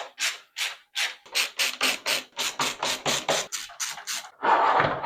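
Rhythmic rasping strokes of a hand screwdriver, about four a second, turning out the screws that hold a PC power supply in its case; near the end a longer scrape.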